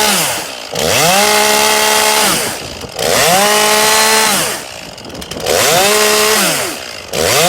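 Two-stroke petrol chainsaw revved to full throttle again and again: each burst climbs quickly, holds a steady high pitch for about a second and a half, then falls back toward idle, three times over with a fourth rev starting near the end.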